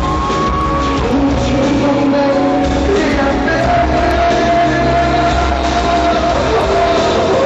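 Live pop concert music with a singer's voice, loud and steady, with long held notes that glide in pitch over a steady low beat.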